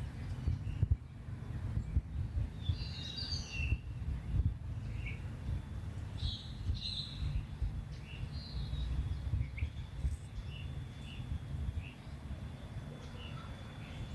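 Small birds chirping and calling at scattered moments, with a thin high note held through the second half, over a continuous low rumble.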